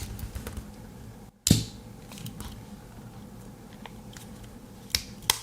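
Sharp metallic snap from the Victorinox Soldier Swiss Army knife being worked about a second and a half in, then two lighter clicks near the end.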